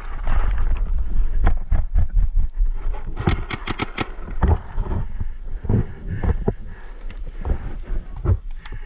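Paintball gameplay: irregular sharp pops and knocks, including a quick string of four cracks about three seconds in, over a steady low rumble on the microphone.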